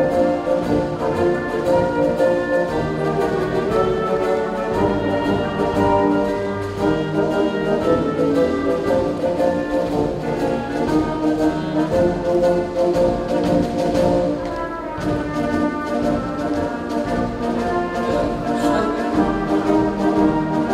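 Orchestral music led by brass instruments, playing held chords.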